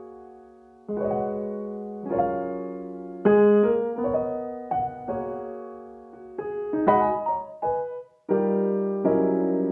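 Background piano music: chords and single notes struck about once a second, each ringing and fading, with a brief pause near the end.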